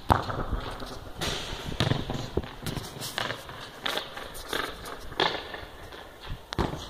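A football thudding and bouncing on a concrete court: a string of sharp thuds, the loudest right at the start, then several more spread every half-second to second.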